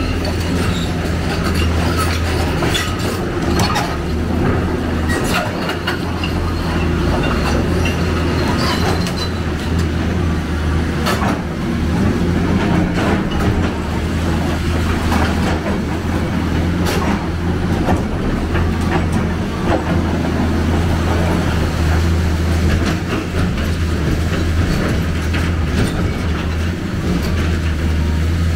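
Hyundai Robex 290LC-9 crawler excavator's diesel engine running steadily with a deep hum, with scattered sharp knocks and clanks of metal and rubble.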